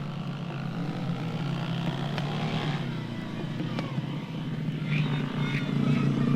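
A steady, low engine drone, with a few sharp record clicks and some short, high chirps near the end.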